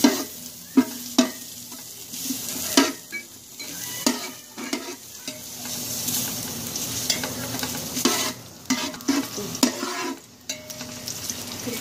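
Sliced onions sizzling in hot oil in a steel pot as they start to fry for browning, while a spatula stirs them, knocking and scraping on the metal in irregular sharp clacks.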